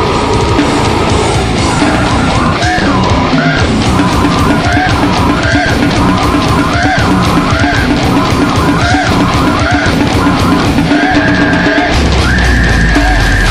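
Extreme heavy metal track: distorted guitars and drums at full level, with a high line bending up and down about once a second. Near the end a heavier low end comes in under a high held note.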